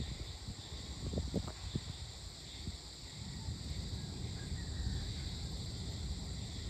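Evening chorus of crickets and other insects, a steady high trill. Underneath runs a low rumble, with a few soft thumps in the first two seconds.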